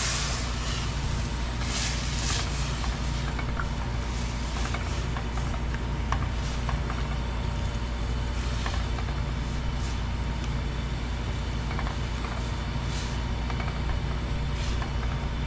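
Pot of stewed lentils simmering on the stove: a steady low rumble and hiss with faint scattered pops.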